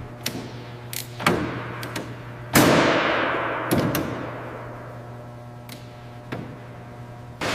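A series of separate knocks and clanks over a steady low hum. The loudest comes about two and a half seconds in and dies away slowly with a long echo.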